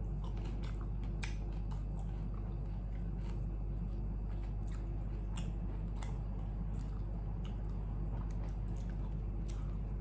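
A person chewing food close to the microphone, with scattered small wet mouth clicks, over a steady low hum.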